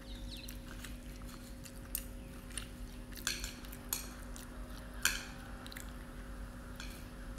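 Chopsticks clicking and scraping against a ceramic bowl of instant noodles several times, the sharpest scrape about five seconds in, with chewing between. A steady low hum runs underneath.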